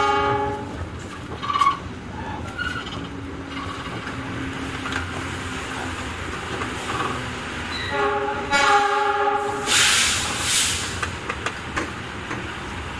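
A train pulling into a station, heard from inside a coach: rolling rail noise with scattered wheel clicks, a short horn blast at the start and a longer one about eight seconds in. About ten seconds in comes a loud burst of hissing.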